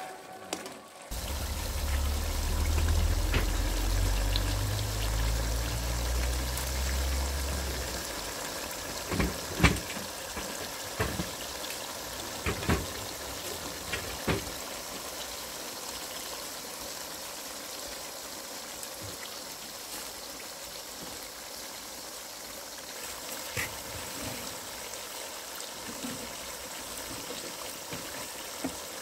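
Cubed meat cooking in its own juices in a large metal pan, a steady bubbling hiss. A low rumble over the first several seconds, and a handful of sharp knocks in the middle.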